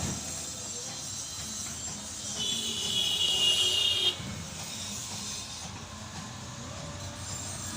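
Isuzu 4HF1 diesel engine running with a steady hiss. A high whistle rises over it for about a second and a half near the middle.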